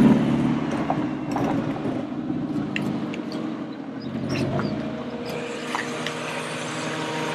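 A Volkswagen Vanagon's engine running steadily at low revs, with a few faint ticks over it.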